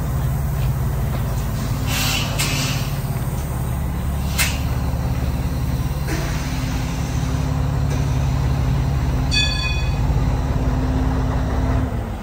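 Heavy diesel truck engine idling steadily, with short air hisses about two seconds in and a brief electronic beep a little past halfway.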